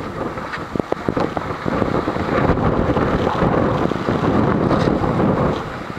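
Storm wind buffeting the microphone in heavy gusts with a loud rumbling roar, with a few sharp ticks of hailstones striking about a second in. The gusting eases just before the end.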